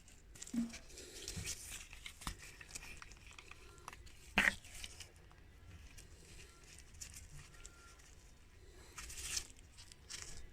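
Faint handling sounds as grease is worked into a sterndrive prop shaft seal housing: soft rustles and small clicks, with one sharper click about four seconds in and a short rustle near the end.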